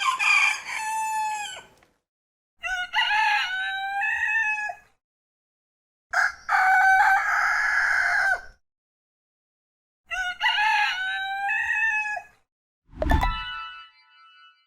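A rooster crowing four times, each crow about two seconds long with a short silence between. Near the end there is a sudden low whoosh and a brief electronic tone.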